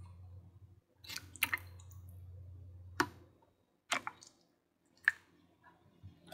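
Plastic kitchen tongs clacking against a glass bowl and a pot as wet parboiled sweet potato sticks are lifted out of water, about six sharp clicks a second or so apart. A low steady hum sits under them and stops a little past halfway.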